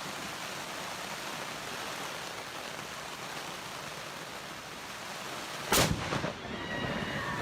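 Steady hiss of heavy rain, then a sudden loud crack of a close lightning strike near the end, followed by a short rumbling tail.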